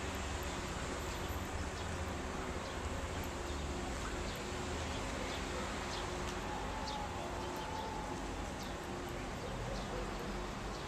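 Birds chirping in short, scattered high calls over a steady low rumble of outdoor background noise.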